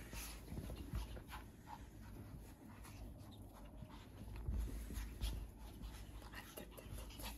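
Pet otters' short squeaks and snuffling breaths, with rustling of bedding and soft bumps from handling, a little louder around the middle.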